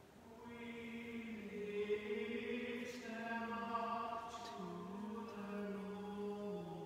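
A priest chanting the Mass in plainsong, unaccompanied, one man's voice. He holds long notes and moves in small steps between a few pitches.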